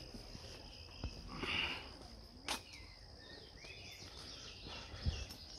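Faint outdoor ambience: a steady high insect buzz, with a few short bird chirps in the middle and a few light knocks.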